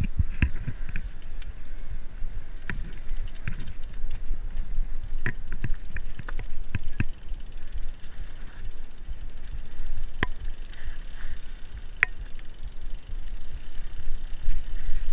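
Mountain bike ridden over a rough dirt singletrack, heard from the rider's own bike: a steady low rumble of the ride with frequent rattles and sharp clicks as the bike hits bumps, the sharpest about ten and twelve seconds in.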